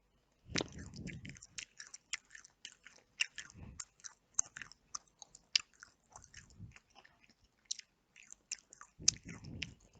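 Close-miked chewing of chicken: a dense run of wet mouth clicks and smacks, starting about half a second in, with a few low soft thuds.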